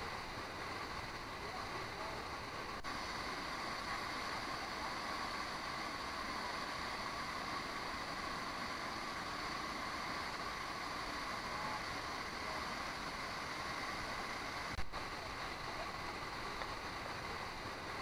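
Steady rushing of a waterfall and its stream, an even wash of water noise. A single short click stands out about fifteen seconds in.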